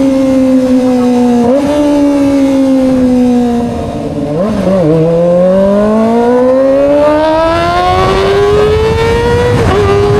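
Kawasaki ZX-25R's high-revving inline-four engine under way: the pitch sags slowly for about four seconds as the bike eases off, wobbles briefly, then climbs steadily as it accelerates hard, with a short dip at a gear change near the end.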